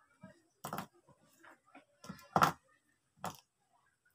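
A few short knocks and clatters of objects being handled, the loudest about two and a half seconds in.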